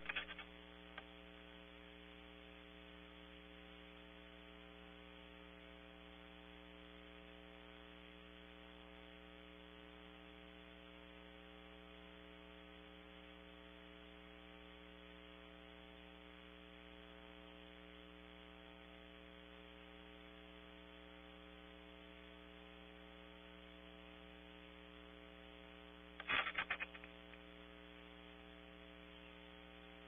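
Faint, steady electrical mains hum in the nest camera's audio, with a brief crackly burst of noise near the end.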